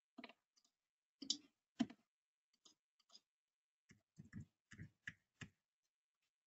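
Computer mouse clicking: a few sharp clicks in the first two seconds, then a quick run of clicks between about four and five and a half seconds in.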